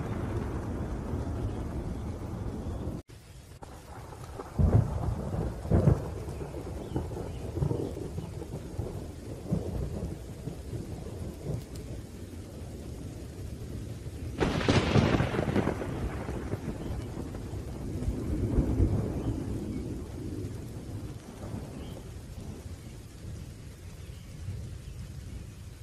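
Thunderstorm: steady rain with thunder, two sharp thunder cracks about five seconds in, a long roll of thunder a little past the middle and a weaker rumble later. The rain noise falls away suddenly about three seconds in and continues more quietly.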